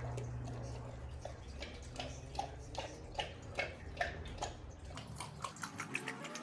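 Great Dane lapping water from a stainless steel bowl: a regular run of wet laps, about two or three a second, quickening to about four or five a second near the end. Under them is a low steady hum that fades out about five seconds in.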